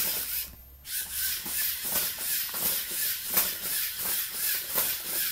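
Lego Mindstorms EV3 walking robot stepping along a tiled surface: its motor-driven plastic legs tap the tiles about two to three times a second over a steady hiss.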